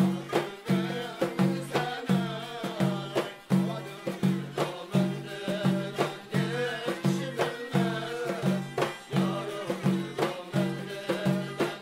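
Uyghur muqam music: a voice singing over plucked strings, with low notes striking in a steady, repeating rhythm.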